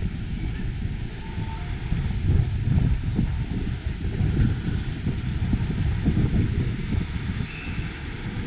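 Wind buffeting the microphone: an uneven, gusty low rumble that rises and falls throughout.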